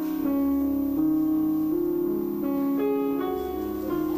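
Slow, gentle ballad accompaniment led by piano, sustained chords changing about once a second, with no singing.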